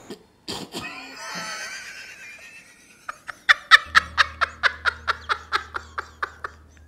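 A man laughing hard. It starts breathy, then breaks into a fast run of ha-ha bursts, about five a second, that dies away near the end.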